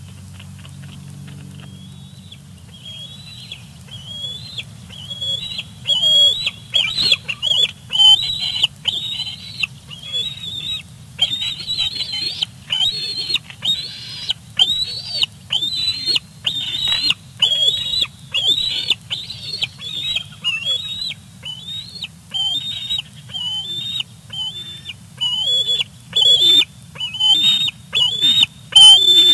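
Young bald eagle giving food-begging squee calls, a long series of short, high-pitched squeals about once a second that grow louder after the first few seconds.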